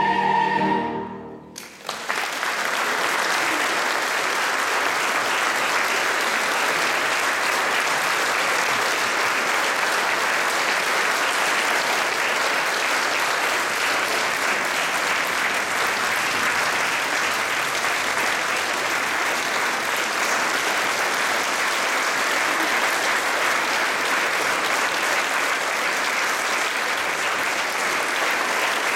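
A choir's final held chord ends about a second and a half in, and the audience breaks into long, steady applause.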